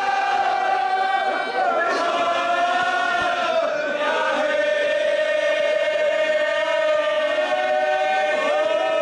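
A group of men's voices chanting a marsiya, the Shia elegy, in unison with a lead reciter, in long held notes that shift in pitch a few times.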